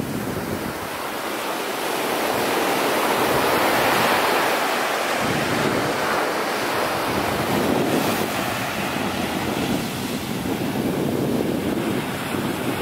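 Ocean surf breaking and washing up a sandy beach, with wind buffeting the microphone; the wash swells about four seconds in.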